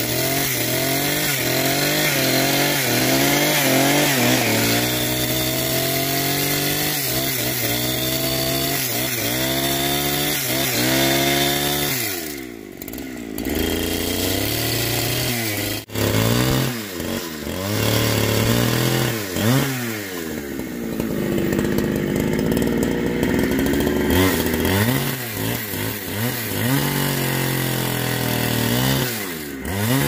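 Two-stroke chainsaw running while cutting through a log, its engine pitch repeatedly sagging and climbing as it works in the wood. About twelve seconds in it drops briefly to a lower, quieter note before revving back up.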